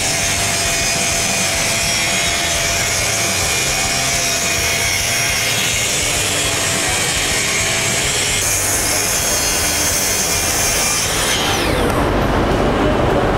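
Festool TSC 55 cordless plunge-cut track saw cutting through plywood along its guide rail, running steadily under load. Near the end the motor is released and its whine falls away as the blade spins down.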